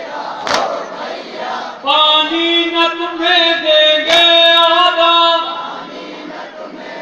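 Men chanting and singing together, with long held sung notes through the middle, and two sharp claps or knocks.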